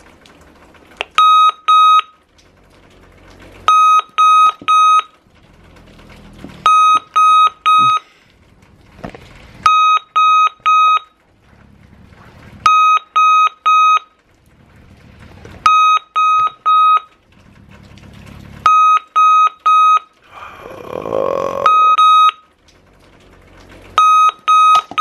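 Digital alarm clock going off: bursts of three short high beeps repeating about every three seconds. A brief rustling noise comes in about three-quarters of the way through.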